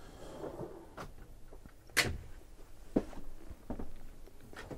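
Camper-van kitchen drawer being pushed shut and the drawers handled: a few light knocks and clicks, about one a second, the sharpest about two seconds in.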